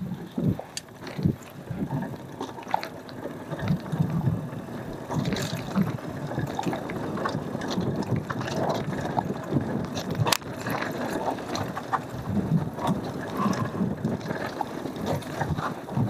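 Cube Analog hardtail mountain bike ridden over a dirt trail: steady tyre noise on the ground with many irregular clicks, rattles and knocks from the bike over bumps.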